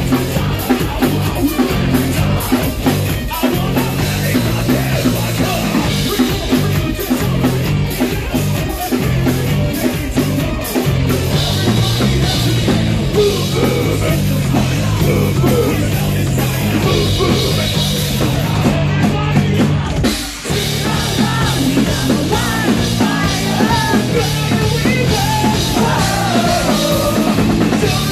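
Metalcore band with electronic synths playing live and loud: pounding drum kit and heavy low end under yelled and sung vocals. The music drops out briefly about two-thirds of the way through, then crashes back in.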